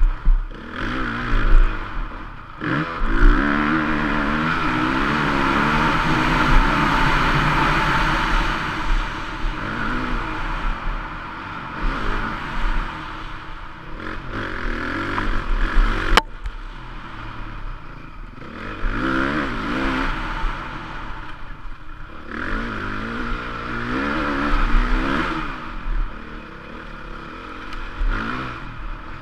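Stock 2014 Honda CRF450 single-cylinder four-stroke motocross engine being ridden hard, revving up and dropping off again and again as the throttle is opened and closed through corners and straights. A long pull is held at high revs a few seconds in, and there is a sharp click about halfway through.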